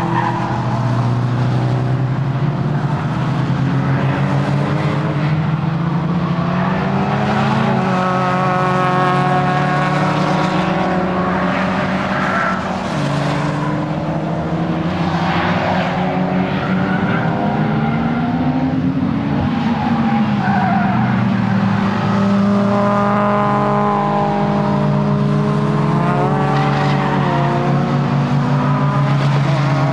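Nissan S15 Silvia's four-cylinder engine driven hard, its pitch climbing and then dropping several times, with tyres squealing repeatedly through corners at track pace.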